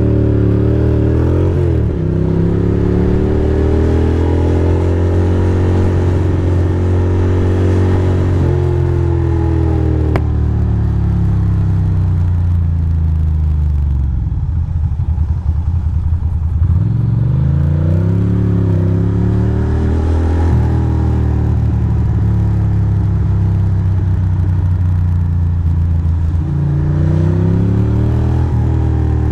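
Ducati Monster's V-twin engine heard from the rider's seat while riding, its speed rising and falling repeatedly with throttle and gear changes.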